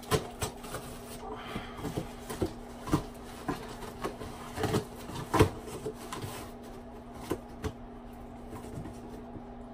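Packing tape on a cardboard shipping box being cut and scraped open with a small hand tool: irregular scratches, scrapes and sharp clicks against the cardboard.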